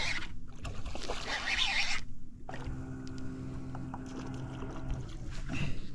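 A hooked redfish being reeled to the boat: splashing water and reel noise. After a sudden cut about two seconds in, a steady low mechanical hum follows.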